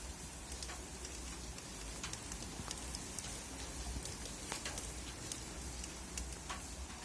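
Rain falling steadily, with many separate drops ticking sharply on a nearby surface over a low, steady rumble.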